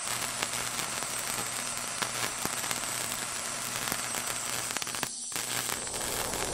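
Crackling static hiss over a steady low hum, dense with small clicks, briefly cutting out about five seconds in.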